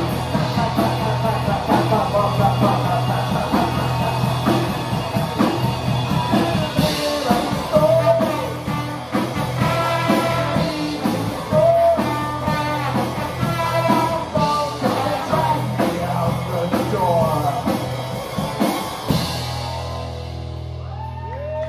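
Live rock band playing: electric guitar, drum kit and trombone, with a man singing. The song ends about nineteen seconds in, leaving a steady amplifier hum.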